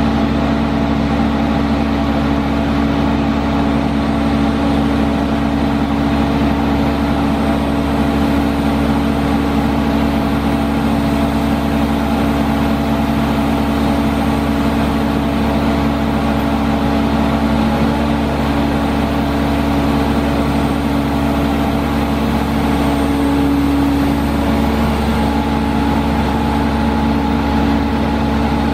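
Caterpillar C7 six-cylinder diesel of a Sandvik DX680 crawler drill rig running steadily at constant speed, driving the hydraulics while the drill boom is moved.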